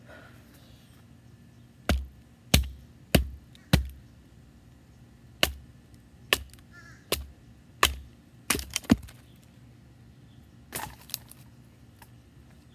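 About a dozen sharp wooden knocks at uneven intervals as a bushcraft knife is driven through a stick of wood to split it, then two softer knocks near the end.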